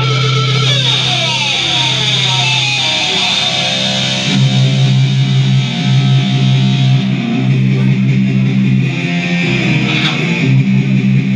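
Live stoner/psychedelic rock band playing: electric guitar with gliding, falling lead lines over bass. The band comes in louder and heavier about four seconds in.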